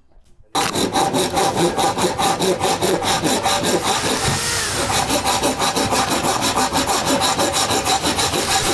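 Hand saw cutting through a black plastic pipe in rapid, even back-and-forth strokes, starting about half a second in.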